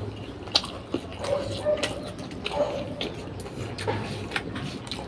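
Close-miked eating: chewing and mouth noises with scattered sharp clicks, and a few short, faint steady tones sounding now and then behind them.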